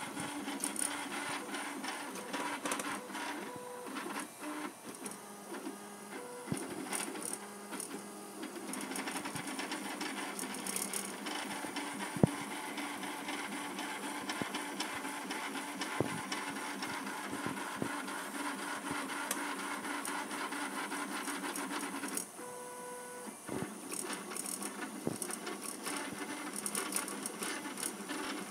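A 3D printer running, its stepper motors giving steady whining tones that shift in pitch every few seconds as the print moves, with a couple of sharp clicks.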